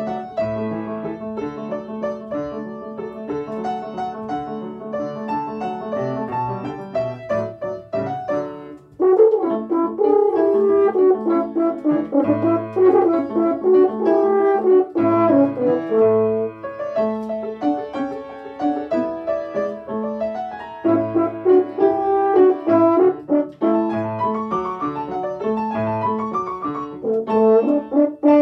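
Piano playing an introduction alone for about nine seconds, then a French horn comes in louder and plays a melody over the piano accompaniment.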